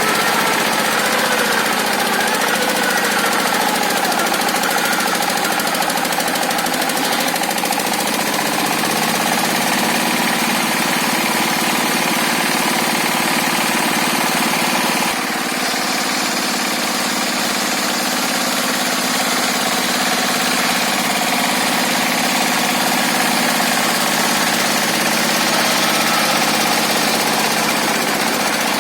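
Engine-driven circular sawmill (serkel) running continuously, the engine and large saw blade working through hard, fibrous timber, its pitch shifting as the load changes, with a clear change about halfway through. The machine is labouring because the saw blade is blunt from never being filed.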